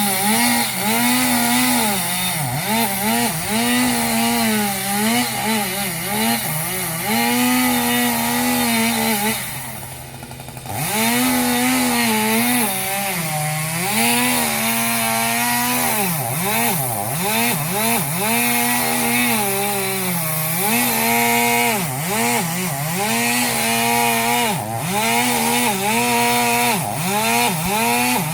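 Two-stroke chainsaw running at high revs, its pitch dipping and climbing back every second or two as the throttle eases and opens again, with a brief drop in level about ten seconds in.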